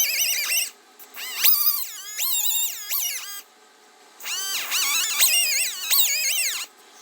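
Die grinder whining in bursts as it buffs corrosion off the four-wheel-drive wiring terminals, its pitch sagging and recovering as it is pressed onto the metal and eased off. It stops twice briefly, about a second in and again around three and a half seconds.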